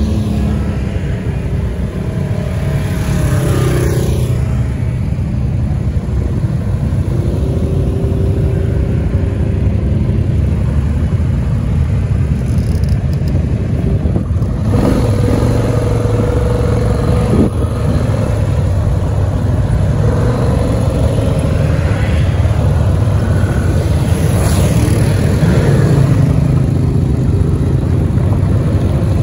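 ATV engines running, their pitch rising and falling several times as they rev, over a constant low rumble.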